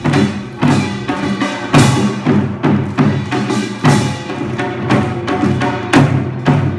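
Korean traditional music: drum strikes and sharp wooden clacks in a steady rhythm, about one to two a second, over sustained pitched notes.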